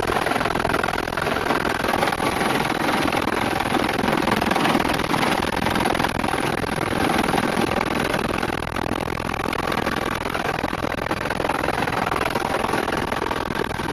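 An engine running loudly and steadily: a dense, even noise that holds level, with no speech over it.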